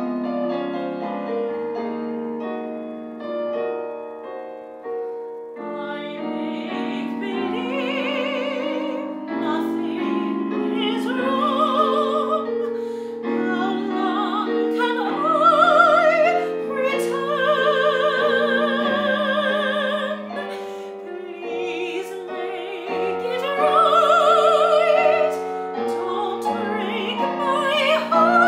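A recorded piano accompaniment plays alone for about the first six seconds. Then a soprano enters, singing a musical-theatre song over it with a wide vibrato, and grows louder on long held high notes.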